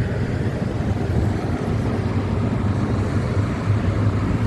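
Steady low hum of motor-vehicle engines with road noise, as from nearby city traffic.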